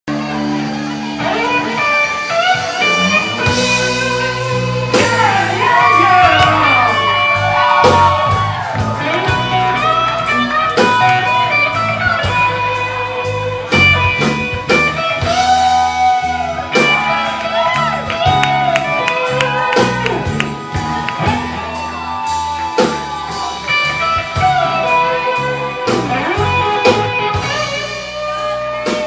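Live blues-rock band playing an instrumental passage: electric guitar lead with bent and sliding notes over bass guitar, drums and Hammond organ.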